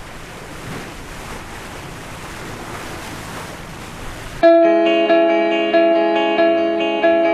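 Steady rush of wind and sea waves on open water; about four seconds in it cuts off abruptly and loud guitar music starts, distorted chords held and re-struck at an even pulse.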